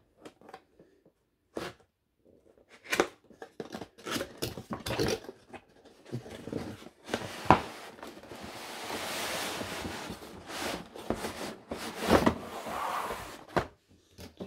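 A train-set box being opened and its packaging handled: scattered knocks, clicks and scrapes, with a longer sliding rub about eight seconds in.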